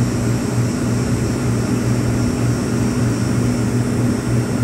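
Ice-O-Matic ice machine running with a steady, loud hum.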